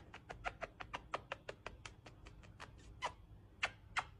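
Rapid kissing smacks of a person's lips on a cat's face, about five or six a second, slowing to fewer, louder kisses about three seconds in.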